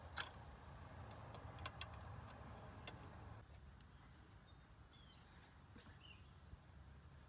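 Near silence, with a few faint clicks and taps in the first three seconds as the torque converter lockup solenoid is fitted into the transmission case, and faint bird chirps about five seconds in.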